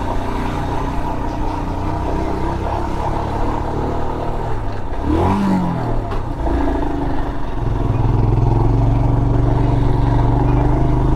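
Motorcycle engine pulling the bike up a steep road. About five seconds in the pitch swoops up and back down as the revs change, and from about eight seconds on the engine runs louder and steadier under load.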